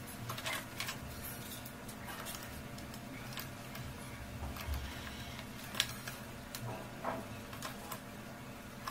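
Light clicks and taps of plastic parts and wiring being handled and fitted into a battery strapping tool's plastic housing, with one sharper click about six seconds in, over a steady low hum.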